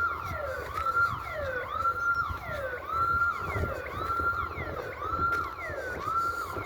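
Electronic alarm siren wailing in a fast repeating whoop: each cycle rises quickly to a held high tone, then glides down, repeating about every 0.8 seconds.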